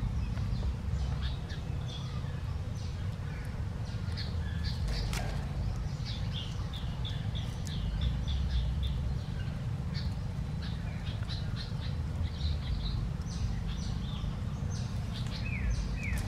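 Small birds chirping in quick runs of short, high calls over a steady low rumble.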